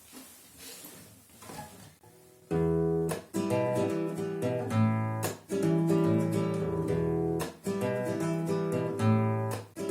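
Acoustic guitar intro strumming chords in a steady rhythm, starting about two and a half seconds in after a faint quiet stretch.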